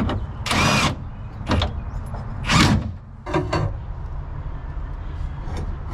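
Steel strips of a bolted alignment jig being handled against a car body: four short scraping, rattling strokes, the third the loudest, over a steady low rumble.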